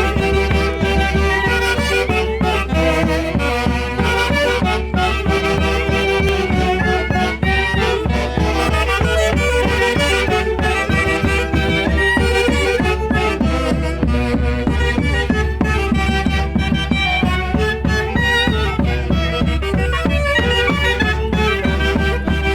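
A band playing Santiago festival music, a folk style of Peru's central Andes. Several melody instruments play over a steady beat.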